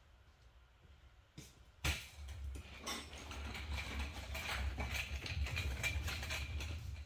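A power tool running for about five seconds, a fast rattle over a low hum. It starts about two seconds in and stops abruptly, consistent with driving a fastener during the sidecar mounting.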